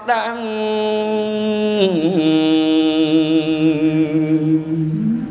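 A male Buddhist monk chanting Khmer smot in one long held vocal line. The note wavers and drops to a lower pitch about two seconds in, then holds steady.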